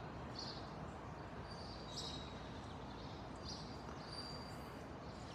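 Quiet outdoor street ambience: a steady low hum with a few faint, short high chirps scattered through it.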